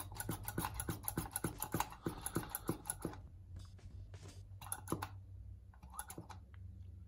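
Hand vacuum pump being squeezed in quick strokes, clicking about three times a second for three seconds, then a few slower strokes. It is drawing vacuum on a diesel turbo's VNT actuator to pull its rod to full stroke.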